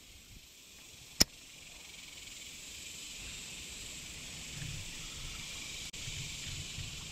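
Steady high-pitched insect chorus, a summer drone of insects. A single sharp click comes about a second in, and there is faint low rumbling in the second half.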